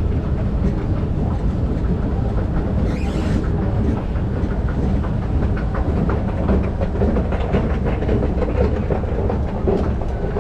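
Steady low rumble of an underground MRT station, heard from a rising escalator, with a short hiss about three seconds in.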